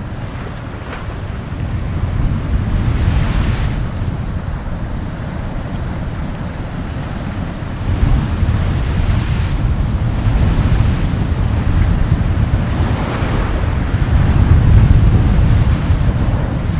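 Sea surf breaking and washing up the shore in rolling swells, loudest near the end, with wind rumbling on the microphone.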